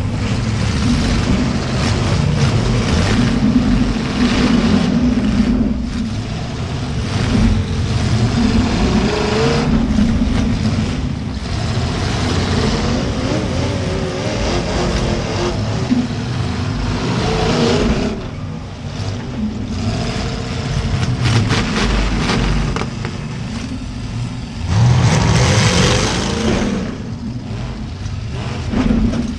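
Demolition derby cars' V8 engines revving in repeated surges, mixed with many short bangs and clanks of metal striking metal as the cars collide. A loud surge of engine and impact noise comes near the end.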